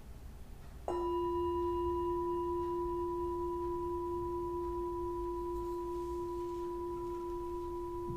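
Singing bowl held on the palm, struck once with a mallet about a second in, then ringing on with a strong low tone and a higher one above it, fading only slowly.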